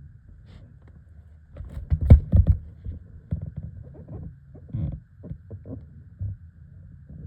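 Bumps and knocks on a small boat, loudest in a cluster about two seconds in, with scattered softer knocks after, over a low rumble.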